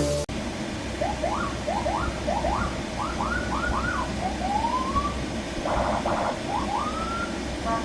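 Electronic vehicle siren from a Senken CJB100BD siren module and Senken YD100i speaker, stepping through its tones: a run of quick rising whoops, a longer rising sweep, a brief rapid warble, then more whoops and a stepped tone near the end.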